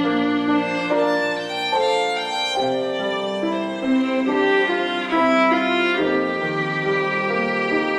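Slow instrumental background music: a held, legato melody of long notes over sustained chords.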